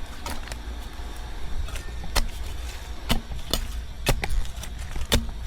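A small hand shovel striking and chopping into soil, about six sharp irregular strokes, with a steady low rumble underneath.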